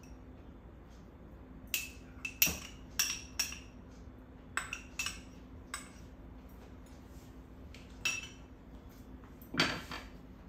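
Metal spoon clinking and tapping against the rim of a kadhai and a small cup while milk powder is stirred into hot milk: about a dozen short, ringing clinks, the loudest about two and a half seconds in, with a longer knock and scrape near the end.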